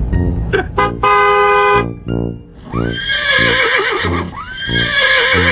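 A short steady pitched tone about a second in, then two long wavering animal calls, whinny-like, one after the other.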